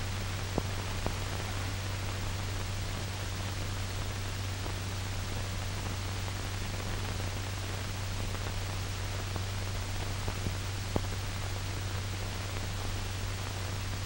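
Steady hiss and low hum of an old film soundtrack, with a few faint crackles.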